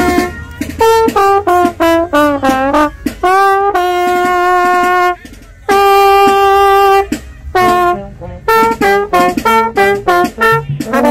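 Solo trombone playing a brass-band riff: quick detached notes with sliding, bending pitches, then two long held notes, with a short break about five seconds in. A lower held horn note joins near the end.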